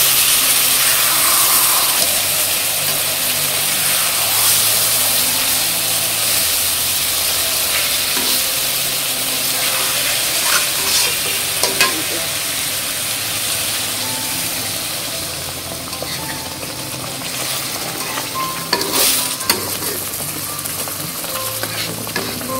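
Whole sarputi (olive barb) fish frying in spiced oil in a karahi, a steady sizzle throughout. A metal spatula stirring and turning the fish knocks and scrapes against the pan a few times, in two clusters about halfway through and again near the end.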